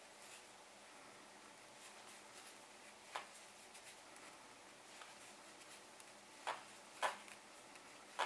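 Wooden knitting needles clicking softly as stitches are worked in green yarn, about four light clicks spread out, two close together near the end, over faint room hiss.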